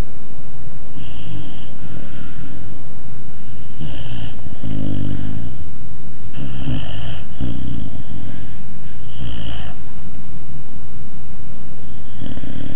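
A Dogue de Bordeaux puppy snoring loudly in its sleep. The snores come in uneven breaths every second or two, some with a deep low rumble.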